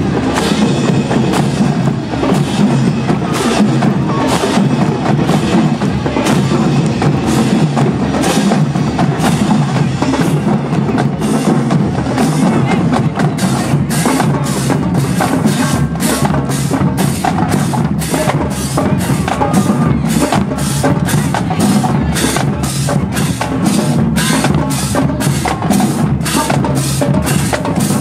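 Marching percussion playing a drum cadence: drums with sharp stick clicks, settling into a steady beat of about two strokes a second in the second half.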